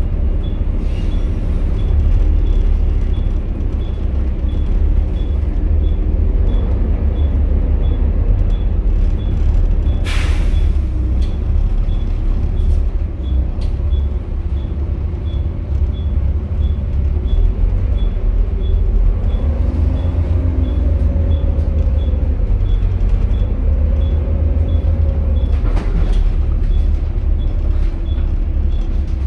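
Volvo B7TL double-deck bus's seven-litre six-cylinder diesel and drivetrain running under way, a steady low rumble heard inside the cabin, with the engine note rising and falling a couple of times past the middle. A sharp hiss of the air brakes about ten seconds in and again near the end, over a faint regular ticking.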